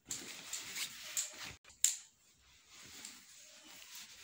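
Clothes rustling as they are laid and pressed into a soft fabric suitcase, in short uneven brushing strokes.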